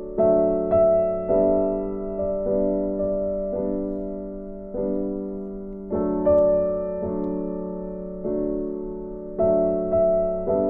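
Slow, gentle solo piano music: notes and chords struck every second or so, each ringing and fading away.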